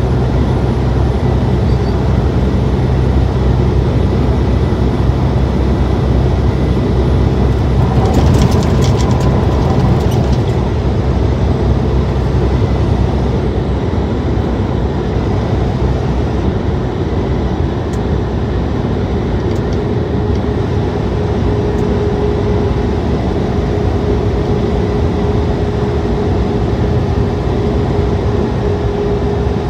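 Semi truck cruising on the highway, heard from inside the cab: a steady low drone of engine and tyre noise. There is a brief rattle about eight seconds in, and a steady higher hum joins past the middle.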